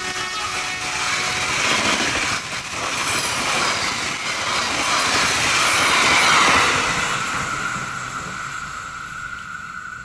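A train passing at speed on a curve, the end of its horn blast fading just as it begins. The rush of the cars swells and then fades, and a steady high squeal from the wheels on the curve rings through the second half.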